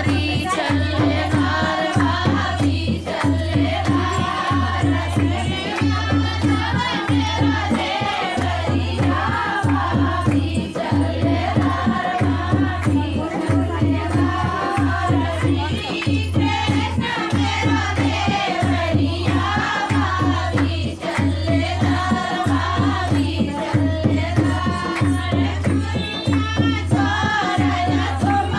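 A Hindi dehati folk song: singing over a steady drum beat that falls about once a second, with faster strokes between.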